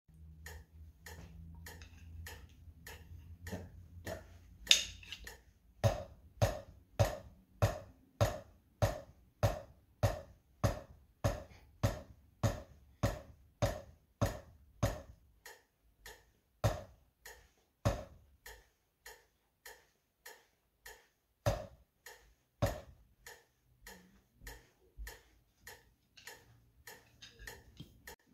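A drumstick striking a rubber practice pad in time with a metronome's steady clicks, about two a second. Regular strokes run from about six to fifteen seconds in, then come a few single strokes while the metronome keeps ticking.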